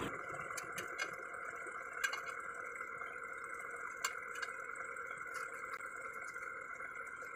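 Pause in pneumatic impact-wrench work on a truck's wheel nuts: scattered light metallic clicks and taps as the wrench socket is moved onto the nuts, over a steady faint whine in the background.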